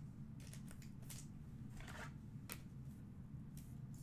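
Faint, scattered rustles and soft snips and clicks, several short strokes a second or so apart: trading cards and their plastic packaging being handled.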